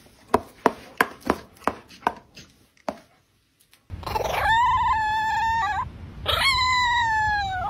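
A run of sharp taps, about three a second and fading out. After a short gap, a chihuahua howls twice: two long, high howls, the second sagging slightly in pitch.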